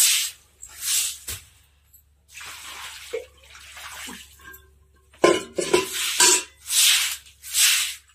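Stiff stick broom swishing water across a wet floor in repeated strokes, with water splashed from a steel bucket and a few light clanks.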